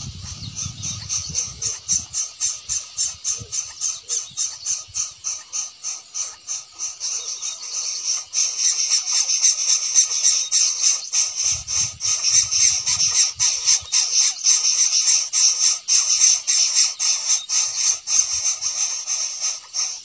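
Greater coucal nestling begging: a fast, even series of short, high-pitched calls, about three or four a second, growing louder about eight seconds in.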